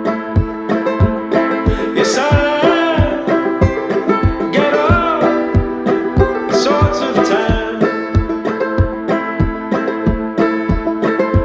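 Background music: a banjo-led, country-style song with a steady kick-drum beat and brief sung lines.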